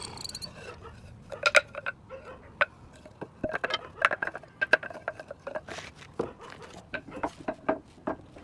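Irregular light knocks and clicks of hard objects being handled on a workbench, some with a short ring, coming in quick clusters. A running machine cuts off just at the start.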